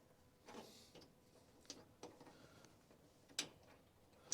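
A few faint, scattered metallic clicks and clinks, the loudest about three and a half seconds in, from the large cab bolts and socket tools being handled.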